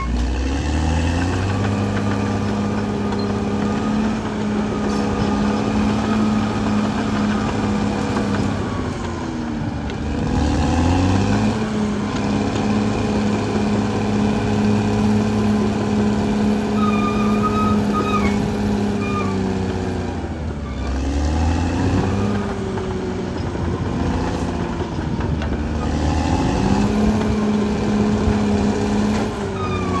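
Caterpillar D6R XL bulldozer's diesel engine running hard, its pitch sagging and climbing back about every ten seconds as the load on the blade and tracks changes.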